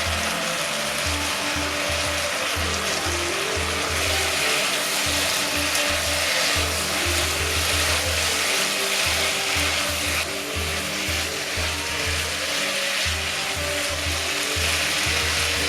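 Food sizzling steadily in a hot frying pan, with background music whose low notes step along underneath.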